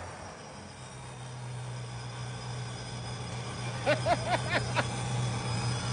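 Dodge Daytona 392's 6.4-litre Hemi V8 idling steadily as the tail of a rev dies away at the start. About four seconds in, a quick run of five short high chirps sounds over the idle.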